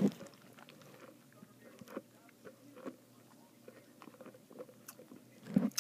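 Faint sounds of someone drinking iced coffee from a plastic cup: soft gulps and small clicks scattered through a mostly quiet stretch, with a short vocal sound near the end.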